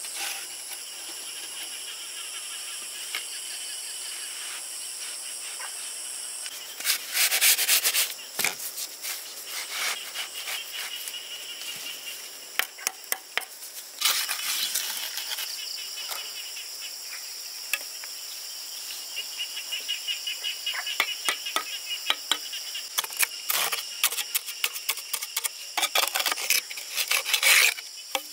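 Steady high-pitched insect chorus, with irregular bursts of rapid clicking and scraping from hand work breaking in several times.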